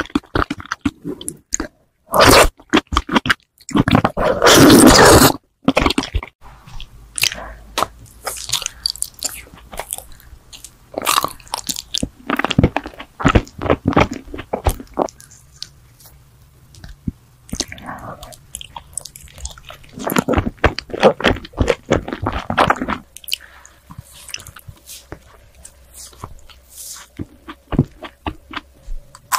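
Close-miked ASMR eating sounds: chewing and crunching in the mouth. A few loud crunching bursts come in the first few seconds, again in the middle and about two-thirds in, with quieter chewing clicks between.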